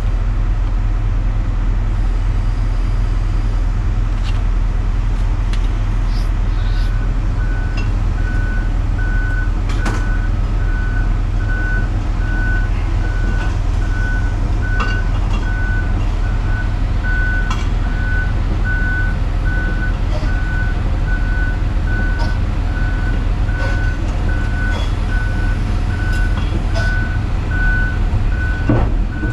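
Hitachi Zaxis 250 excavator's diesel engine running steadily under load. About six seconds in, its travel alarm starts a steady beeping of about one and a half beeps a second as the machine tracks. Scattered metallic clicks and clanks come from the undercarriage.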